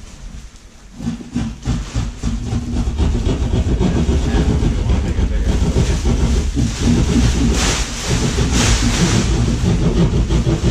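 Large clear plastic tarp being shaken out and spread, rustling and crackling in bursts, loudest near the end, over a steady low rumble that sets in about a second in.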